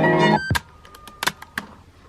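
Music playing back from a Sony WM-WE7 Walkman cassette player cuts off abruptly, followed by three or four sharp mechanical clicks from the player's transport as it is stopped and operated.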